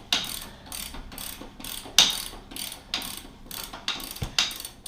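Hand ratchet clicking as it turns a motorcycle's front wheel axle: a string of short, sharp clicks, unevenly spaced at about two to three a second, with one louder click about two seconds in.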